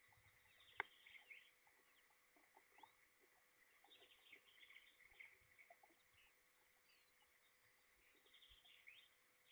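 Faint chirps of distant small birds in clusters, with scattered light ticks of rain drips and one sharper tick about a second in.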